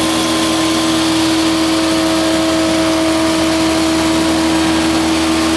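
Powermatic 201 planer, a single-phase 7.5 hp machine with a four-knife cutterhead, running steadily at speed: a constant, even-pitched hum with no change in level.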